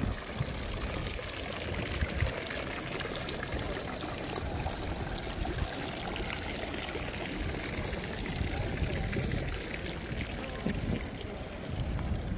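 Water from a stone fountain's spouts splashing and pouring into its basin, a steady rush.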